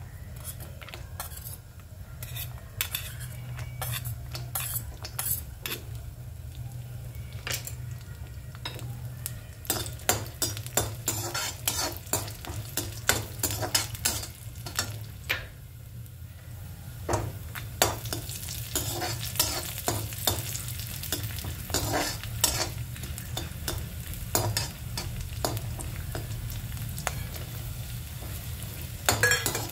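A perforated metal skimmer scrapes and taps against a metal kadai as chopped almonds, cashews and raisins are stirred and toasted, with the dry bits rattling in the pan. The scrapes and clicks are sparse at first and come thick and fast from about ten seconds in.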